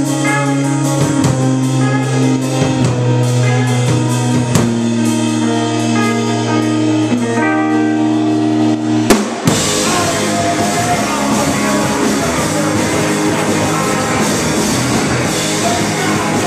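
A live rock band plays an instrumental passage on electric guitar, bass guitar and drum kit. They hold ringing chords over steady bass notes, then about nine seconds in a sharp hit brings the band into a denser, noisier section.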